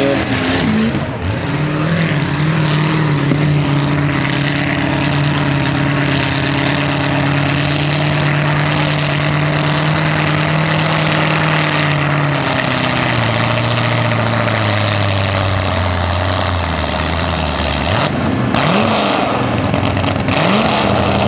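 Small-block V8 engine of a 4x4 pulling truck held at high revs under load while it drags a weight-transfer sled. About two thirds of the way through, the revs drop and keep sinking as the engine bogs down and the pull ends. Near the end come a couple of short blips of the throttle.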